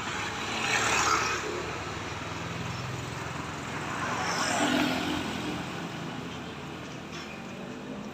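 Road traffic: engines humming and vehicles passing close by, two louder passes about a second in and a little past the middle, with no horn sounding.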